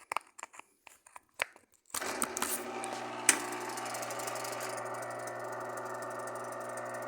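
A few light clicks, then about two seconds in the motor of an Electrolux LF90 washing machine switches on and runs steadily with its drive belt off, giving a low hum with a rough rattling noise over it, with one sharp click shortly after it starts. The noise is the one the technician traces to a worn bearing that needs replacing, and it is quieter without the belt's load.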